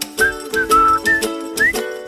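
Background music: a whistled melody that slides between notes, over a chordal accompaniment with a steady beat.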